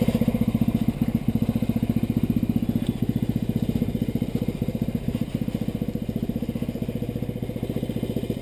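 Yamaha Rhino UTV's single-cylinder four-stroke engine idling, a steady even pulse of about ten beats a second.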